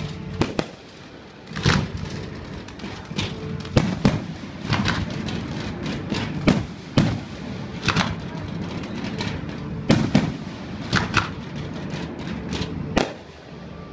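Fireworks being fired in a display: a run of sharp bangs, irregular and roughly one every second, as volleys of white comets shoot skyward, over a steady background noise.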